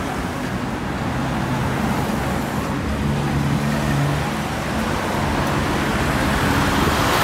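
Road traffic: cars passing close by on a city road, a steady wash of tyre and engine noise, with one engine's hum growing louder about three to four seconds in as a car goes by.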